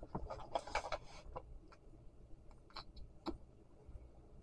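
Faint rustling and small clicks of makeup containers being taken out of a fabric makeup bag and handled. The rustling comes first, then a handful of separate light clicks over the next couple of seconds.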